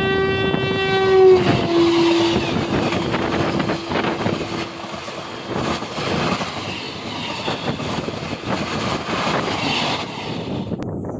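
An Indian Railways electric local train sounds its horn with one loud held note, which steps slightly lower about a second and a half in and dies away soon after. Then come the rumble and clatter of its wheels over the rail joints as the coaches run past at speed, until the sound cuts off just before the end.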